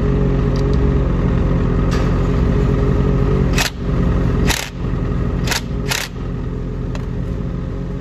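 2021 Ski-Doo 850 Turbo's two-stroke twin-cylinder engine running steadily at idle, with four sharp clicks a little after halfway.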